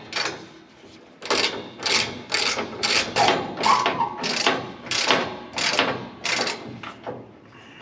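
Hand ratchet tightening bolts: repeated ratcheting strokes about two a second, starting about a second in and stopping shortly before the end.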